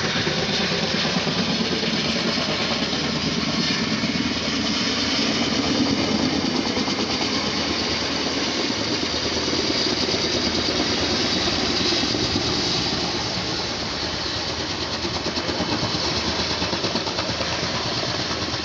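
Firefighting helicopter's rotor and turbine noise, a steady rhythmic throb that eases slightly in the last few seconds.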